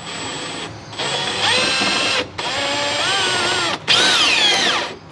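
Cordless drill boring a hole up through a caravan floor from underneath, run in three spells with the trigger let off briefly between them. The motor's whine climbs in pitch in the first spell and sags in the last, as the bit loads up in the floor.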